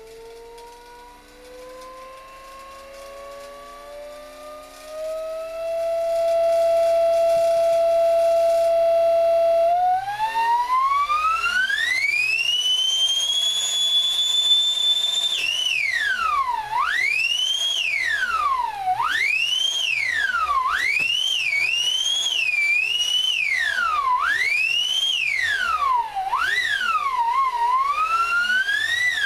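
3D-printed electric jet's fan whining as it spins up. The pitch climbs slowly and levels off, then rises steeply to a high, loud whine about a third of the way in. In the second half it swoops down and back up about every one and a half to two seconds as the speed is cut and raised.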